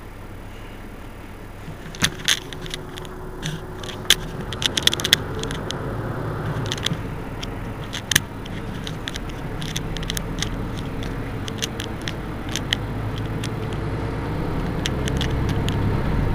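Mercedes-Benz Citaro C2 city bus engine idling at a stop, a low rumble that grows steadily louder, with scattered sharp clicks and rattles over it, thickest in the first half.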